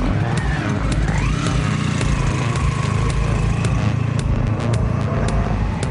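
Motorcycle engine of a motorcycle-and-sidecar outfit pulling away. Its pitch rises about a second in, then it runs steadily.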